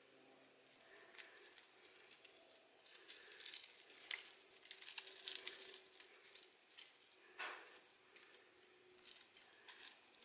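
Faint, irregular crackling and tearing as the cracked shell of a hard-boiled egg and its membrane are peeled off by hand. The shell was cracked all over by shaking and comes away in large pieces. The crinkles are busiest in the middle, with a brief louder crackle a little later.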